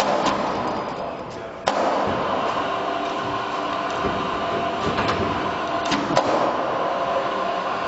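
Industrial machinery starts abruptly about a second and a half in, then runs with a steady whir and hum, with a few sharp clicks and knocks.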